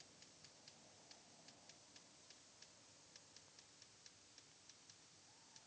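Faint ticking, about four ticks a second and not quite evenly spaced, over a low background hiss.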